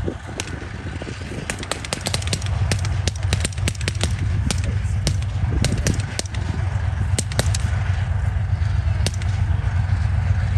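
Irregular cracks of blank rifle fire from advancing infantry, dense in the first half and sparser later, over the steady low rumble of an armoured vehicle's engine.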